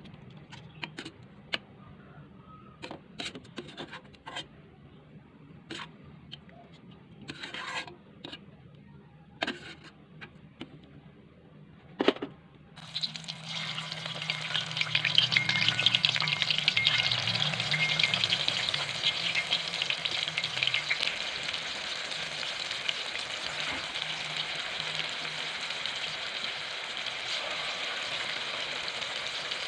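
Scattered clicks and knocks, then about thirteen seconds in boiled cassava pieces go into hot oil in a metal wok and a loud, steady sizzle of deep-frying starts and keeps going.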